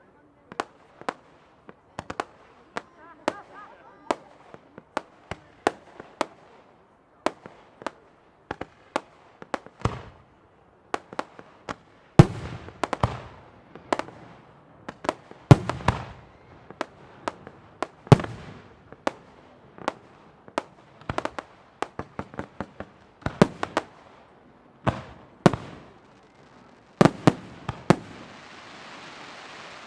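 Fireworks display: aerial shells bursting in a rapid, irregular series of sharp bangs, many with an echoing tail, coming thickest in two volleys. A steady hiss starts near the end.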